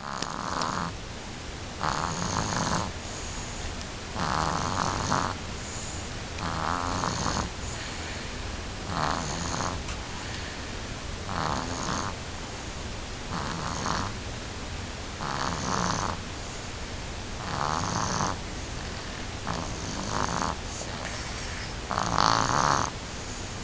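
Snoring: about ten even, rhythmic snores, one every two to two and a half seconds, the loudest near the end.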